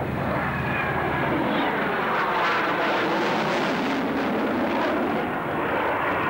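Jet noise of a Panavia Tornado F3's twin RB199 turbofans as the fighter banks and passes overhead: a loud, steady rush with slowly sweeping, wavering tones through the middle, growing brighter partway through.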